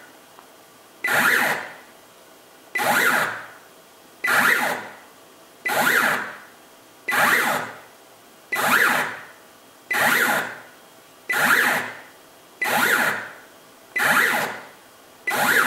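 Stepper motor turning a Sherline rotary table one division at a time, indexing through 127 equal divisions of about 2.8° each. It gives a short whirring move about every second and a half, eleven in all, each starting sharply and dying away.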